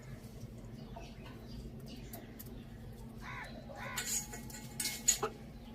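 Chickens clucking and calling in short, separate calls from about halfway in, with a few sharper, louder sounds near the end, over a steady low hum.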